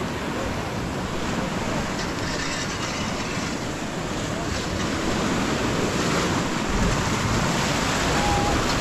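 Steady rushing noise of wind buffeting the microphone over moving floodwater, growing a little louder about halfway through.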